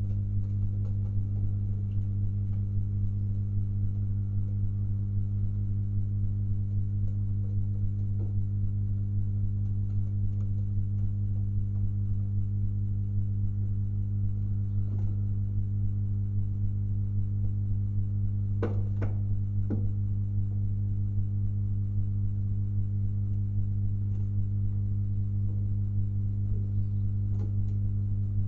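Steady low electrical hum with even overtones, like mains hum picked up by the recording setup. Two faint knocks come about two-thirds of the way through.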